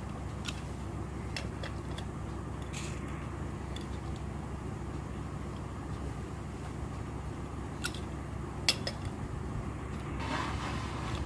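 Hand-operated pearl setting machine clicking sharply as it presses pearl beads into lace: a few scattered clicks, with a cluster of them about two-thirds through. Under the clicks runs a steady low hum, and cloth rustles near the end.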